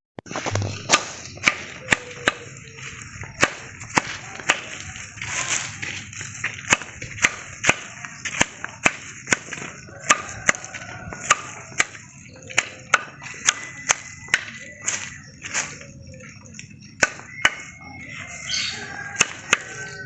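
Axe chopping into a tree trunk: sharp, hard blows at about two a second, unevenly spaced, each one ringing briefly.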